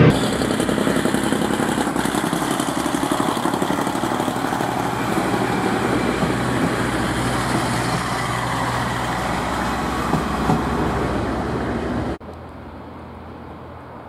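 KiHa 47 diesel railcars of the Iyonada Monogatari train passing close by, the diesel engine running and the wheels rolling on the rails. About twelve seconds in the sound drops abruptly to a fainter, steady rumble.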